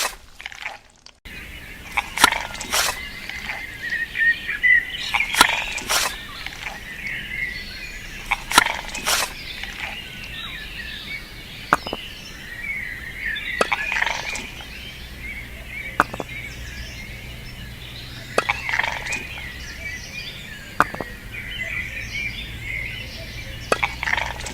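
Birds chirping steadily, with sharp clicks and taps every second or two.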